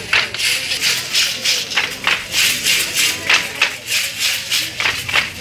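Matachines dancers' hand rattles shaken in a steady dance rhythm, about three sharp shakes a second.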